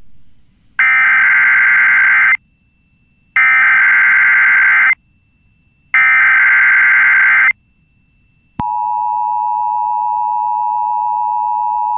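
Emergency Alert System SAME header, three identical bursts of warbling data tones each about a second and a half long, for a tornado watch alert. About eight and a half seconds in, the steady two-tone EAS attention signal follows.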